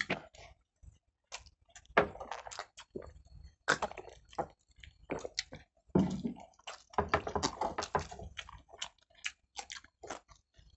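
Close-miked chewing and wet mouth smacks of people eating chicken pulao by hand: an irregular run of short clicks and squishes, a few louder ones standing out.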